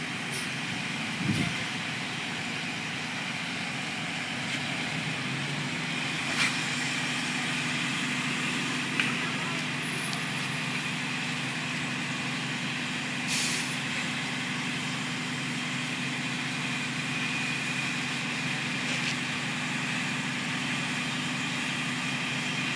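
Steady hum of heavy vehicle engines, fire trucks running with traffic behind, with a short hiss about thirteen seconds in and a few faint clicks.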